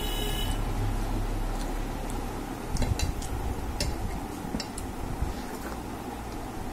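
Fingers mixing rice and dal on a steel thali plate, with several light clicks of fingers against the metal about three to five seconds in, over a steady low hum.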